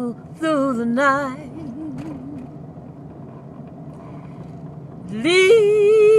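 A woman singing a gospel hymn unaccompanied, drawing out wavering notes with vibrato. Her voice drops away for a couple of seconds in the middle, then slides up into a loud, long held note near the end.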